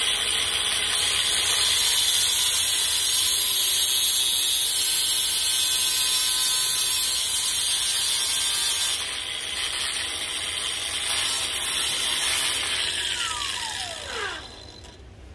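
Angle grinder running as it grinds the tip off a CB antenna's steel whip (stinger), shortening it to tune the antenna's SWR. The grinder then spins down with a falling whine near the end.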